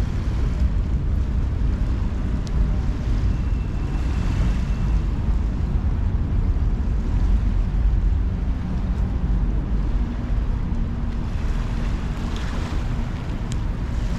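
Wind buffeting the microphone, a steady low rumble, over outdoor background noise; a faint low hum joins it near the end.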